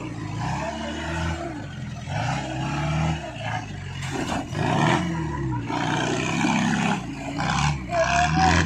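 Jeep CJ-7 engine revving up and falling back again and again as it crawls along an off-road trail, with a knock about four seconds in.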